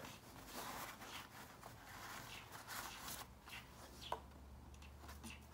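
Faint rustling of cotton dust bags and tissue paper as a pair of leather sandals is handled, with a couple of light knocks a few seconds in.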